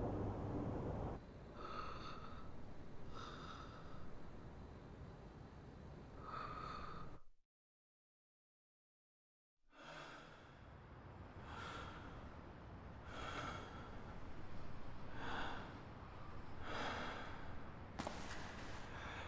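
A person breathing heavily, one breath every one to two seconds. A low rumble cuts off about a second in, and the sound drops out completely for about two seconds partway through.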